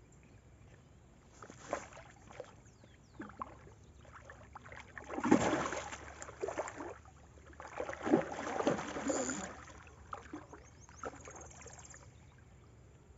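Water splashing and sloshing at the lake's edge as a landing net is worked through the shallows, in two louder bursts about five and eight seconds in, with smaller splashes and knocks between.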